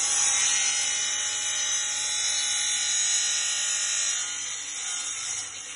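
KD 305 portable miter saw running, its blade and motor giving a steady high-pitched whine that fades somewhat over the last second and a half.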